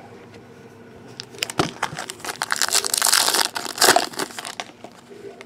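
Foil trading-card pack wrapper crinkling and crackling as it is handled and opened, busiest and loudest in the middle for about two seconds.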